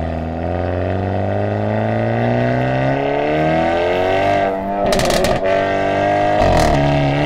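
Hyundai Avante N (Elantra N) 2.0-litre turbo four-cylinder with dual-clutch gearbox accelerating hard, its tuned exhaust note rising steadily in pitch. About five seconds in, an upshift brings a sharp burst of exhaust crackle and the pitch drops and climbs again, with another short crackle near the end.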